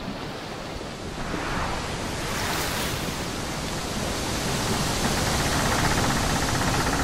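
A steady rushing noise that grows louder about a second in, with a brief swell about two and a half seconds in.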